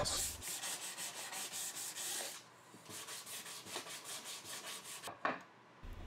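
Hand sanding block rubbed back and forth over the edge of a walnut leg in quick strokes, about five a second, putting a small chamfer on it. The strokes pause briefly near the middle and stop about a second before the end.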